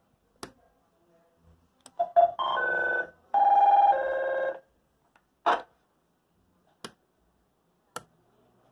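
Switches clicking on a radio caller-tone box, with two short bursts of electronic ringtone-like call tones from it, about two seconds in and again from about three and a half seconds, each stepping between pitches.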